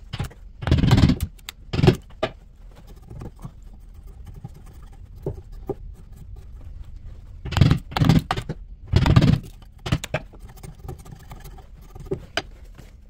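Hammer blows on a wood chisel cutting into the edge of an oak slice, chipping away bark and sapwood. Heavy strikes come about a second in, at two seconds, and again around eight and nine seconds in, with lighter taps between.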